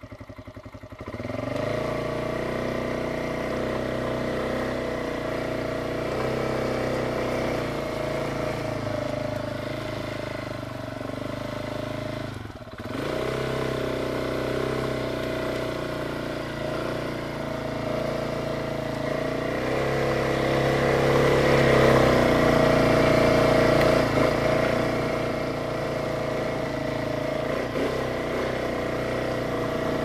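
Kymco MXU 250 quad's single-cylinder four-stroke engine picking up from idle about a second in and running under throttle. It drops off briefly a little before halfway and runs louder for a few seconds about two-thirds through.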